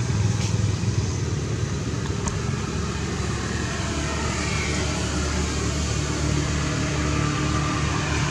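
Steady low rumble of a running engine, unchanging in level.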